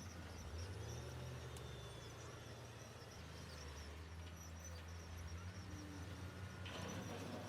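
Heavy construction machinery, dump trucks and bulldozers, with their diesel engines running at a steady low hum that shifts slightly in pitch. A short burst of rattling noise comes near the end.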